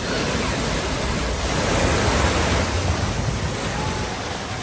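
Floodwater rushing and splashing through a flooded ford, with a low rumble. The rush swells about two seconds in.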